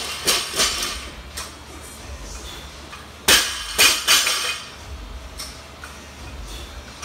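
A loaded barbell with weight plates dropped onto rubber floor mats: one loud crash about three seconds in, then two smaller bounces with the plates clanking. Lighter clanks of a bar settling come near the start.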